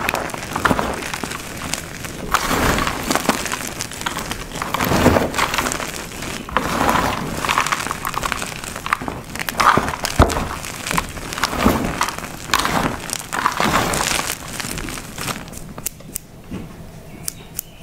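Dyed gym chalk blocks and chunks being crushed and crumbled, a run of powdery crunches one after another, some louder than others, growing quieter near the end.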